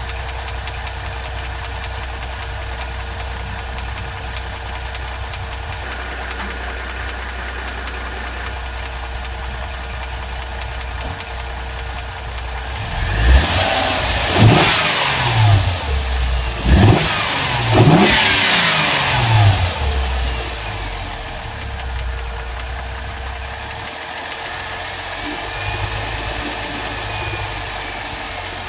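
Mercedes CLS 350's M272 3.5-litre V6 idling, with a thin steady tone over the idle, revved up and let fall back about four times in the middle, then idling again. The owner is asking what causes an extraneous noise from this engine.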